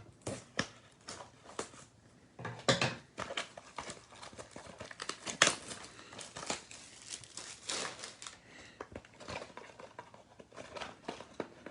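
A cardboard trading-card box being opened and its wrapped card packs taken out and handled: irregular crinkling and rustling of packaging with scattered sharp crackles.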